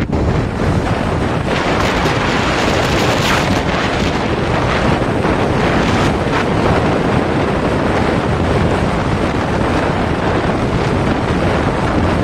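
Wind buffeting the microphone during a motorcycle ride, a steady, loud rushing noise.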